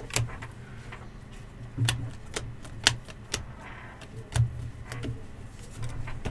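Trading cards and card packs handled on a table: irregular sharp clicks and taps, several with a soft thump, about one a second.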